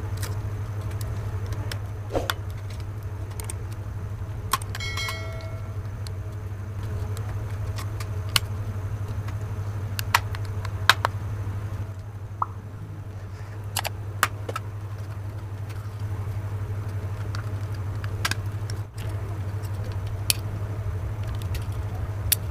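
A small screwdriver prying apart the snap-fit plastic case of an AC remote control. Scattered sharp plastic clicks and snaps sound as the clips give, over a steady low hum.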